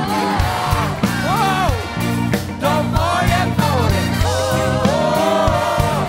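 Live rock band playing, with singing over bass guitar and drums.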